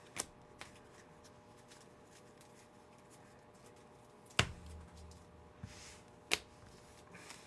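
Trading cards and packs being handled on a table: a few scattered soft clicks and taps, with one louder knock and a short low thud about four and a half seconds in, over a faint steady hum.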